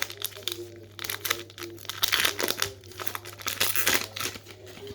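Trading card pack wrapper being torn open and crinkled in the hands: an irregular run of crackling rustles.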